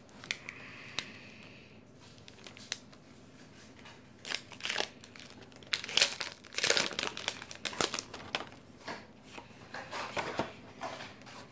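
Foil Pokémon booster pack wrapper crinkling and tearing as it is opened by hand, in irregular bursts with sharp clicks, loudest about six to eight seconds in.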